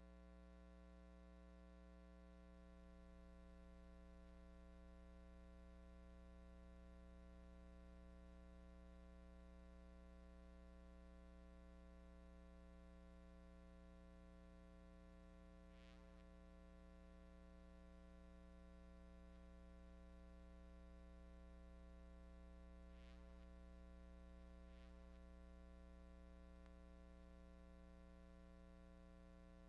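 Near silence: a faint, steady electrical hum, with a few faint ticks.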